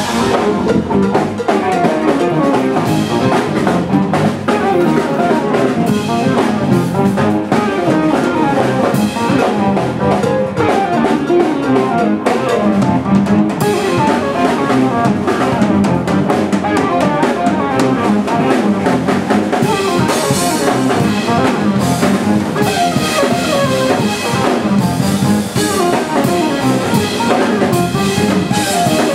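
Live rock band playing loud and steadily: a drum kit under electric bass and a keytar synthesizer.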